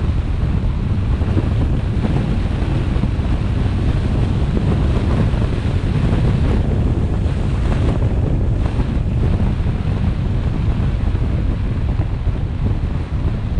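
Wind buffeting the microphone of a GoPro mounted on a moving car: a steady, loud rumbling noise with road noise beneath it.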